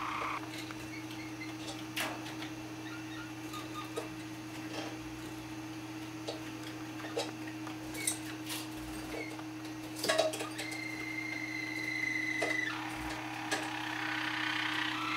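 Harz Roller canaries tapping and pecking with their beaks on a glass-and-plastic teapot and a metal cup: scattered sharp taps, the loudest little cluster about ten seconds in. A canary sings a steady held note for about two seconds shortly after, and sings again near the end, over a steady low hum.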